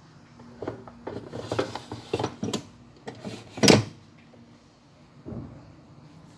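Air fryer basket being handled and slid shut: a series of plastic clicks and knocks, the loudest a single clunk a little before the four-second mark.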